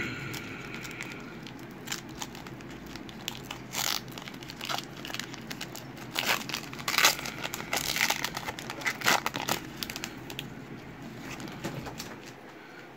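Foil wrapper of a 2020 Legacy football card pack crinkling and tearing as it is peeled open by hand, with a run of sharp crackles that thins out near the end.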